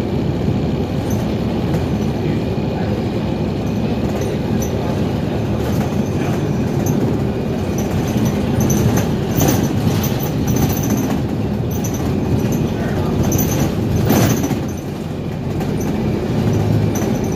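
Cabin noise inside a 2021 New Flyer XDE40 Xcelsior hybrid bus under way: a steady drivetrain and road rumble with frequent rattles and clicks from the body and fittings, easing briefly about fifteen seconds in.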